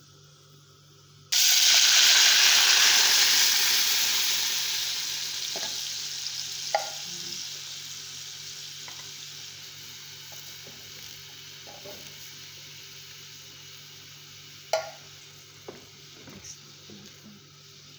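Canned fava beans and their liquid hitting hot oil and browned garlic in an aluminium pot: a sudden loud sizzle about a second in that slowly dies down. A few light knocks of a wooden spoon against the pot come as the beans are stirred.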